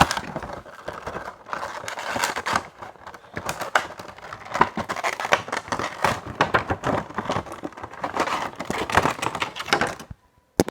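A Funko Pop box and its plastic packaging being opened by hand: a dense run of crinkling, rustling and small clicks that stops abruptly near the end.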